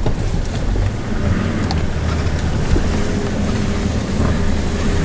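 Four-wheel-drive vehicle's engine running steadily, with tyre and body noise, heard from inside the cab as it drives over a rough bush track; a few light knocks and rattles.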